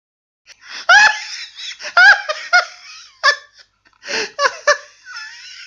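A high-pitched laugh in a string of short peals that stops suddenly.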